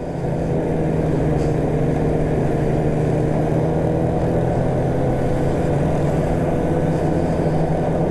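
Polaris snowmobile engine running at a steady cruising speed, heard from the rider's seat, its pitch holding level throughout.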